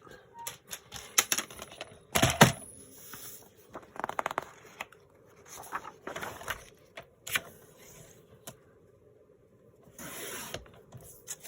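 Paper sheets and book pages being handled on a desk: scattered rustles, scrapes and taps, with a louder rustle about two seconds in and a quick run of ticks around four seconds.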